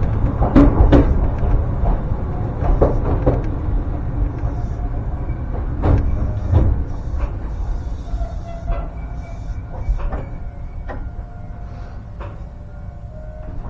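Ryutetsu Nagareyama Line train running, a low rumble with repeated clacks of the wheels over the rail joints, growing quieter through the second half. A faint steady ringing tone comes in over the second half.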